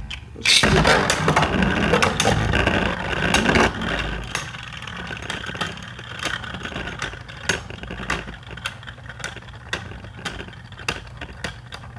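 Two Beyblade spinning tops, a 3D-printed Erase Diavolos and Z Achilles, whirring and clashing in a plastic stadium just after launch. It is loud for the first few seconds, then turns to a quieter spinning whir broken by many sharp clicks as the tops strike each other and the stadium walls.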